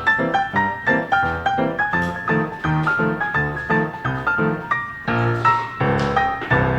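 Background music: a piano-like keyboard playing a quick run of notes, several a second.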